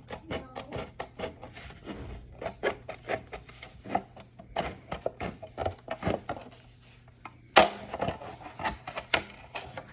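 Stiff plastic armour kit parts being worked by hand: a run of irregular sharp clicks and scrapes, a few a second, with one louder knock about seven and a half seconds in.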